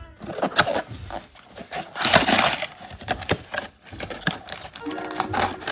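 Plastic wrapping on trading-card boxes and packs crinkling and tearing, with sharp clicks and rustles. Background music comes in near the end.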